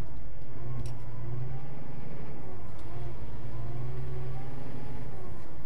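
Semi truck's engine running steadily, heard from inside the cab while driving and turning, its pitch drifting gently up and down.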